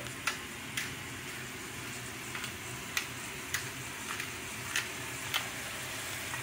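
Hand pepper grinder being twisted over a pan, giving a series of short, light grinding clicks about every half second, over a faint steady hiss.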